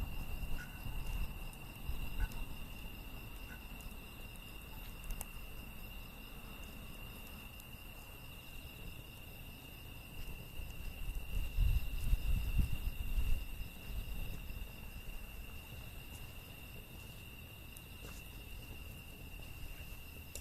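Steady high insect trill, like crickets, with a few faint sharp crackles from the burning wood fire. A low rumble rises and falls around the middle.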